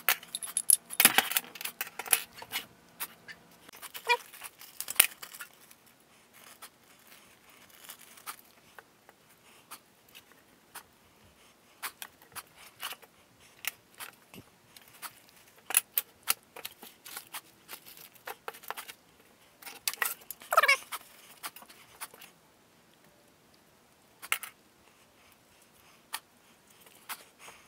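Metal parts of a Volvo 850 automatic transmission clinking, clattering and scraping as its clutch drum and plates are handled and taken apart by hand, in irregular light knocks. A brief squeak about two-thirds of the way through.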